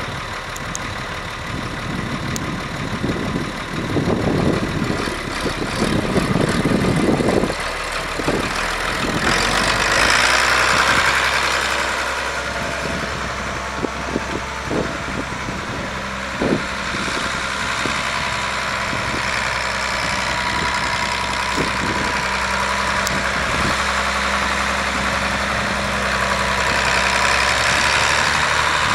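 Ford TW-15 tractor's turbocharged six-cylinder diesel engine running steadily as the tractor drives around, swelling louder twice as it moves.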